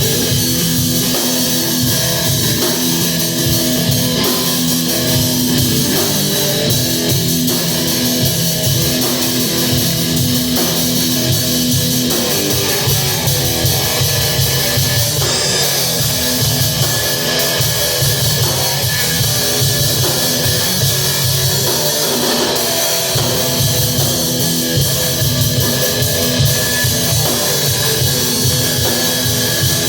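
Guitar and drum kit playing loud rock music together, continuously, with the drums and cymbals running under a driving guitar part.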